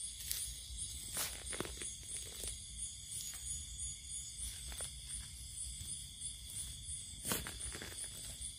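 Night insects, crickets among them, trilling steadily in a high pulsing chorus, with a few scattered crunching steps or rustles in the undergrowth, the sharpest about seven seconds in.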